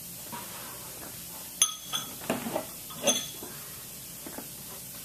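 Steel pump parts clinking together: two sharp clinks, each leaving a brief metallic ring, about a second and a half apart, with a few softer knocks between them.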